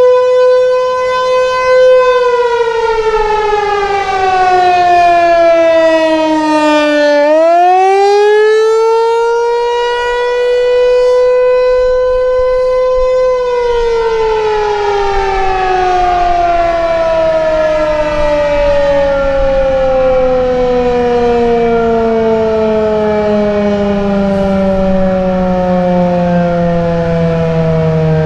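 ASC T-128 Tornado electromechanical warning siren sounding one tone. Its pitch falls over about five seconds, climbs back and holds briefly, then about halfway through begins a long, slow fall as the rotor winds down at the end of the wavering attack signal.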